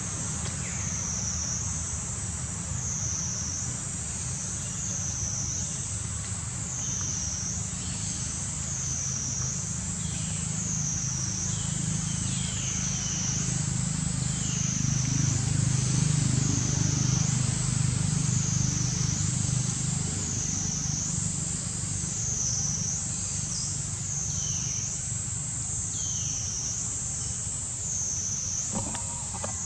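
Cicada chorus, a high drone that swells and fades about once every second and a half, over a steady low rumble that grows louder in the middle. A few brief high chirps come and go.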